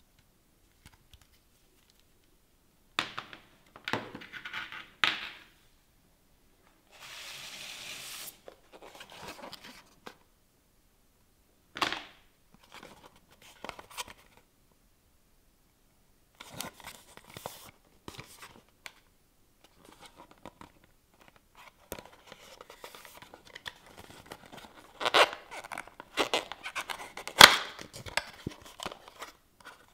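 Packaging being handled and opened by hand: scattered sharp clicks and knocks, a steady tearing sound lasting about a second and a half about seven seconds in, and busier rustling and knocking in the last third.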